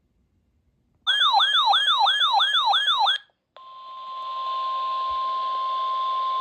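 An electronic siren-like alert whose pitch sweeps down again and again, about three times a second, for about two seconds. After a short gap comes a steady single alert tone over radio static: the NOAA Weather Radio warning alarm tone that heralds a new tornado warning broadcast.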